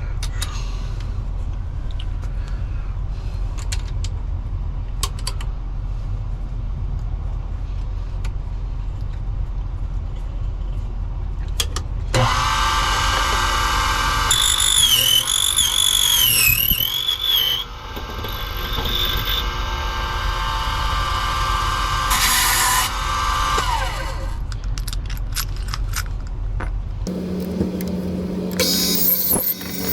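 Key-duplicating machine cutting key copies: after a few clicks as the keys are clamped, the motor runs for about twelve seconds and the cutter whines, its pitch wavering as it follows the key's cuts. A steady low hum runs underneath until near the end.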